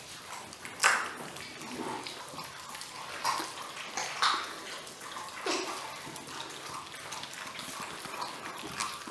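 Weimaraner puppies chewing and gnawing on chicken wings: wet, smacking chewing noises, with about four short, louder sounds scattered through.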